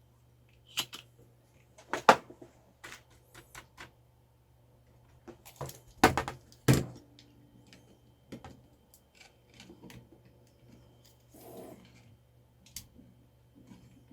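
Scattered sharp clicks and knocks of tools on the plastic parts of a mechanical keyboard while a key switch is desoldered and pried out. The loudest come about two seconds in and twice around six seconds in.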